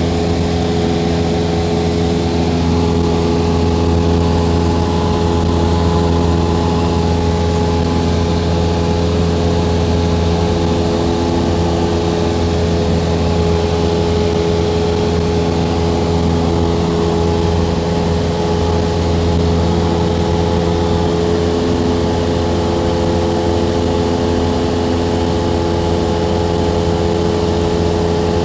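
Light aircraft's engine and propeller running steadily in level flight, heard inside the cabin: a loud, constant drone with several held tones in it.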